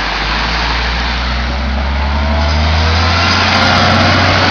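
A motor vehicle's engine running and growing louder as it draws near, its pitch lifting slightly about halfway through, over a steady rushing noise.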